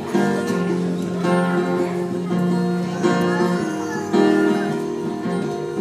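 Acoustic guitar strummed in an instrumental break between sung lines, with a new chord struck about every one to two seconds.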